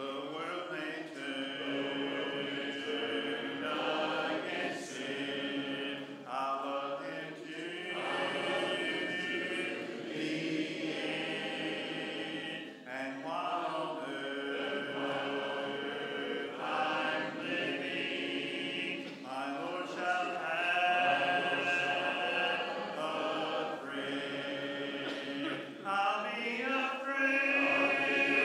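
Church congregation singing a hymn a cappella, phrase by phrase with short breaks between lines.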